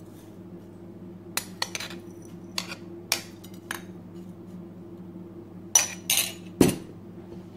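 Metal spoon clinking and scraping against a drinking glass as toasted rolled oats are spooned on top of yogurt. Scattered light clinks are followed by a few louder taps a little before the end.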